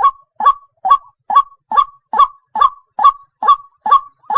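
White-breasted waterhen calling: a short 'wak' note repeated at an even pace, about two calls a second.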